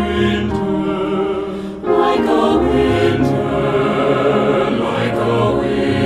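Mixed SATB choir singing a slow, sustained passage, with piano accompaniment. The sound dips briefly just before two seconds in, then the voices come back in together.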